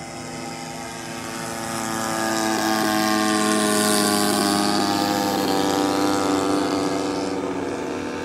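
Radio-controlled model airplane engines buzzing overhead as a plane flies past close by. The sound swells about two seconds in, stays loudest through the middle with its pitch bending as the plane passes, and fades near the end.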